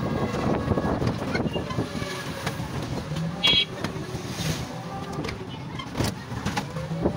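Road noise from riding in a moving vehicle: a steady low rumble with a slowly gliding motor tone and a few sharp knocks and rattles. A short high beep cuts through about halfway.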